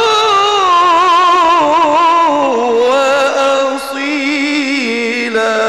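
A male qari's voice in melodic Quranic recitation, holding one long ornamented vowel with a quick, wavering trill. The pitch sinks in steps partway through and settles lower near the end.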